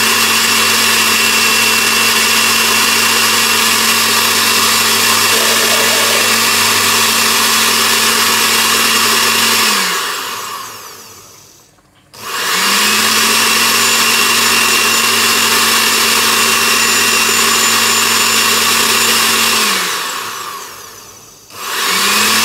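Oster countertop blender motor running, blending cilantro with beer, in three bursts. It runs steadily and winds down shortly before halfway, starts again for several seconds and winds down, then starts once more briefly at the end. The run leaves the mixture not fully blended.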